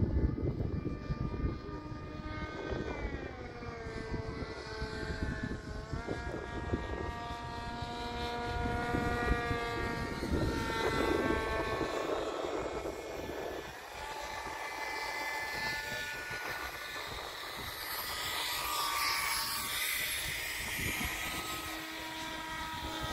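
Brushless electric motor and 16x10 three-blade propeller of a 1/3-scale radio-controlled Aerosport 103 ultralight flying overhead. It makes a steady whining tone that drops in pitch about three seconds in as the throttle comes back, then rises again about six seconds in. A low rumbling noise sits under it for the first half.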